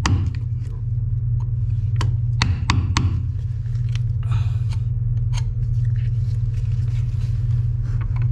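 Air hammer with a flat chisel bit chipping old Bondo filler from around a boat's stern tube and stuffing box studs. The tool runs as a steady low rumble, with sharp cracks of chipping, several about two to three seconds in.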